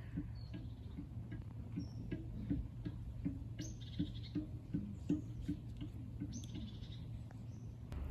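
Cello played pizzicato in a soft, even kalimba-like pattern of short low plucked notes, about two or three a second. High chirps sound over it twice, in the middle and near the end.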